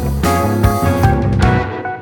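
Background music: guitar with drums, a steady beat.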